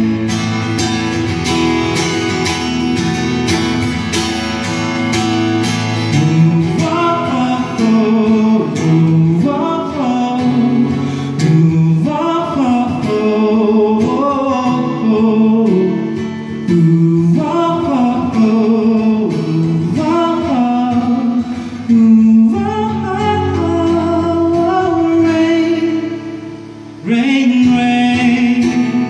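A man singing a slow pop ballad while strumming an acoustic guitar, played live through a microphone. Near the end the music drops off briefly, then the strumming comes back in strongly.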